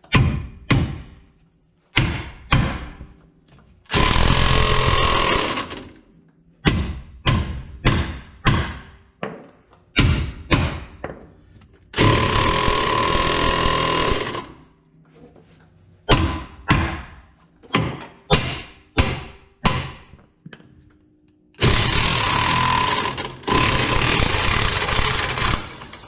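Impact wrench hammering the screw of a ball joint press, pressing a new ball joint into the knuckle bore, in three runs of a few seconds each. Between the runs come many sharp metal knocks, several a second.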